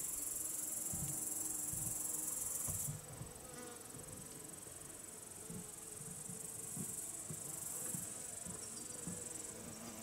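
A chorus of meadow crickets and grasshoppers chirring in the grass, a dense high-pitched hiss that drops in level about three seconds in and carries on more softly. Honeybees flying around the hives hum faintly in and out.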